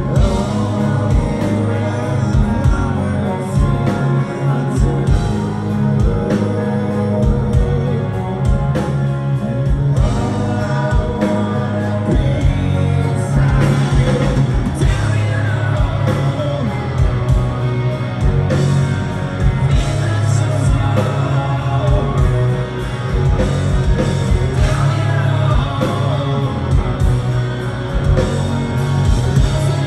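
Live rock band playing, with electric guitars and drums, and a man singing lead.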